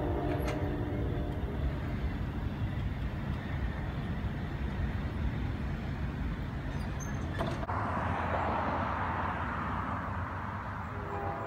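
A train horn dies away about a second in, leaving a steady low rumble. After a sudden change to a rushing noise, an approaching Amtrak train's horn starts to blow near the end.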